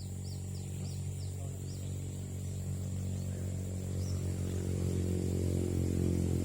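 A motor vehicle's engine running and growing steadily louder as it approaches. Over a steady high insect drone, a bird gives a quick run of short chirps in the first couple of seconds and one more chirp about four seconds in.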